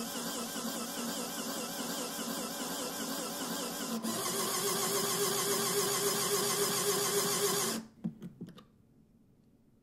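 Small electric motor driving a homemade Lego peristaltic pump, whirring steadily as it pumps water into a Lego pneumatic cylinder. The tone shifts about four seconds in. The whirring stops suddenly just before eight seconds, followed by a few light clicks as the pump is handled.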